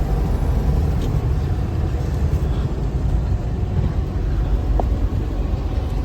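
Car driving along a road: steady low rumble of engine and tyre noise heard from inside the car.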